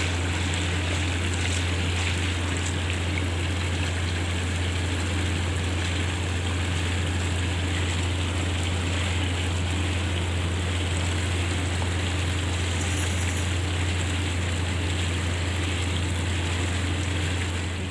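A steady low hum under an even, rushing noise like running water, unchanging throughout.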